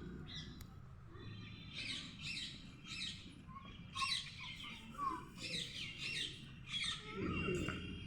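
Birds chirping and squawking in short calls, about one each second, over a faint low background hum, with a brief low murmur near the end.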